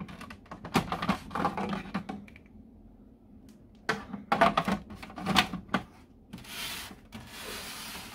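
Clicks and clatter of the plastic handset of a Darth Vader novelty telephone being handled on its helmet cradle, in two bursts, then two short soft hisses near the end.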